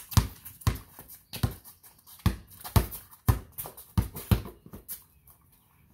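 Basketball dribbled on a concrete driveway, about eight heavy bounces roughly half a second apart, which stop about four and a half seconds in.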